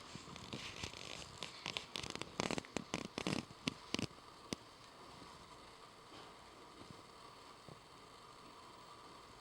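Rustling with a quick run of sharp clicks and crackles, starting about a second and a half in and stopping after about three seconds.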